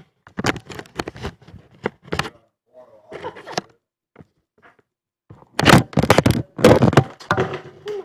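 Close handling noise: irregular knocks, thumps and scrapes, with two loud flurries of thumps past the middle.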